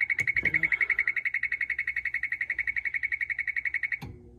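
An electronic warning buzzer on farm machinery giving a rapid, steady pulsing beep, about fourteen pulses a second. It cuts off abruptly near the end.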